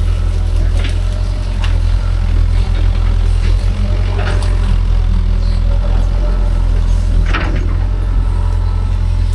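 Kobelco excavator's diesel engine running steadily under a deep drone, with a few sharp cracks and snaps scattered through, typical of brush and vegetation being torn up.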